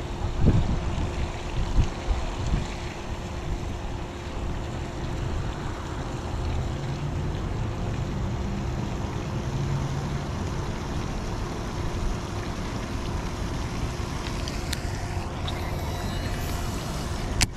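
Wind buffeting the microphone, an unsteady low rumble throughout, with a faint steady hum underneath and a few light clicks near the end.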